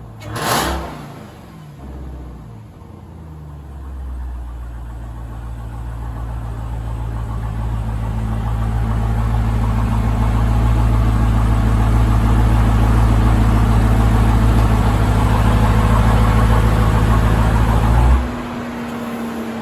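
Jeep Grand Cherokee Trackhawk's supercharged 6.2-litre V8, breathing through a newly fitted cold air intake, running at a steady raised engine speed. It grows louder over several seconds, holds for about ten seconds, then drops back sharply near the end.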